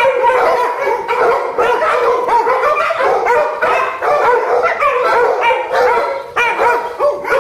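A pack of pit bull–type dogs barking and yipping over one another in a loud, unbroken din.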